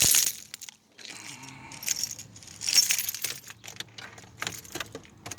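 A set of car keys jangling and clinking as they are handled, in two bursts near the start and about three seconds in, with light clicks between.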